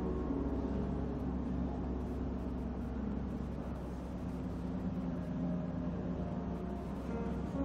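Gongs played softly in a warm-up, giving a steady drone of many overlapping tones over a low hum, with no distinct strikes.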